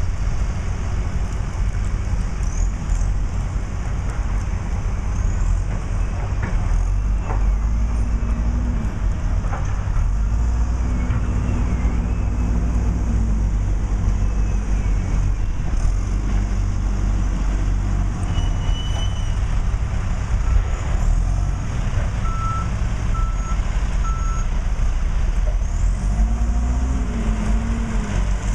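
Heavy construction equipment engines running with a steady low rumble, revving up and down now and then. A backup alarm beeps three times near the end.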